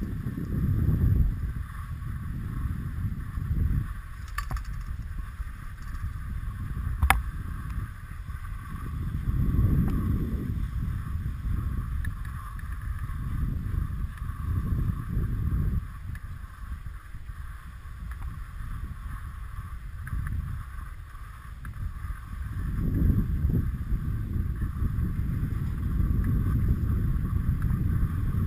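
Skis sliding over groomed snow while being towed up a Poma surface lift, with wind buffeting the microphone in uneven gusts that swell and fade every few seconds. There is a single sharp click about seven seconds in.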